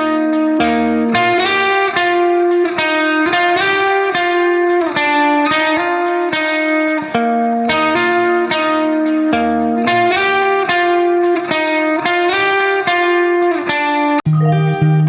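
Background music: a plucked guitar picking a quick, repeating run of notes. A brief dropout comes near the end, then lower bass notes join in.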